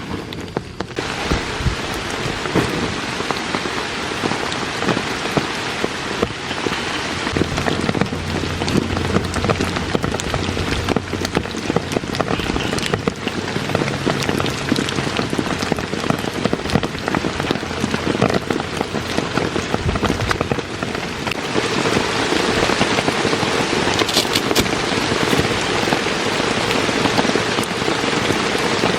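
Heavy rain falling steadily, a dense patter of many drops hitting a surface, growing a little heavier about twenty seconds in.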